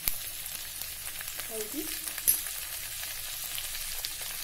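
Chopped onion and tomato masala sizzling in hot oil in a wok while a spatula stirs it. Two sharp knocks stand out, one at the start and one about two seconds in.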